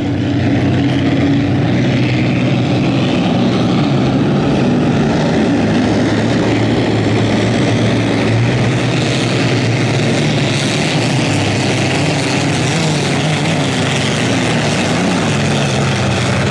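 Vintage racing hydroplanes' Allison V-12 aircraft engines running at speed, a steady drone whose pitch wavers up and down, with the hiss of spray.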